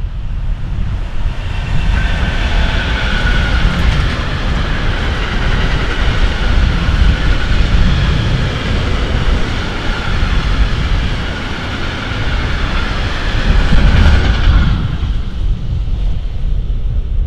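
Freight train of tank wagons, hauled by an electric locomotive, rolling past close by. The steady rush of wheels on rails builds about two seconds in and fades away about fifteen seconds in.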